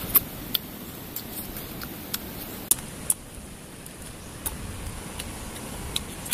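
Close eating sounds: irregular sharp crunches and lip smacks as cooked chicken feet are chewed and gnawed, over a steady high hiss.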